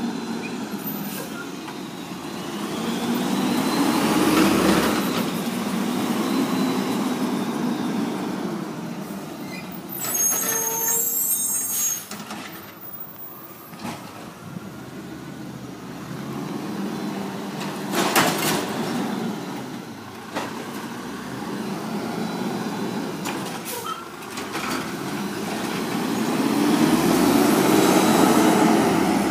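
Garbage truck's diesel engine running and pulling along the street, swelling louder twice as it moves. About ten seconds in comes a loud hiss of air brakes, and a single sharp bang follows at about eighteen seconds.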